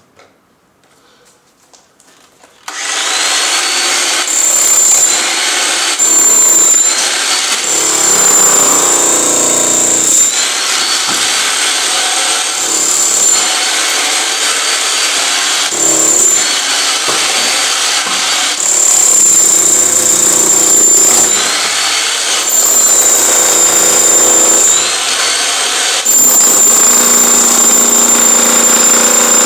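Electric demolition hammer chiselling into a concrete floor slab. It starts about three seconds in and hammers almost without pause, with a high motor whine that rises and falls as the tool is pressed and eased.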